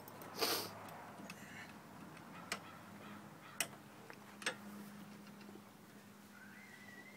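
A few sharp, separate clicks and knocks about a second apart, with a brief scraping rustle near the start, over a faint steady hum.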